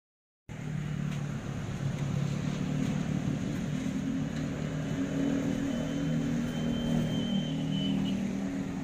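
A motor vehicle's engine running steadily at low revs, starting about half a second in, with a faint thin whistle tone about two-thirds of the way through.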